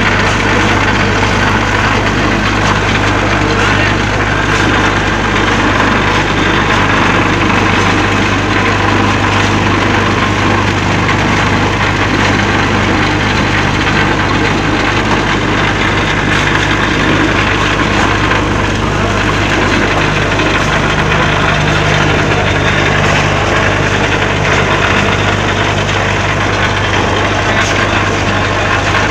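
Electric vibrating table for concrete interlocking paver moulds running with a loud, steady hum and rattle, compacting the concrete in the moulds.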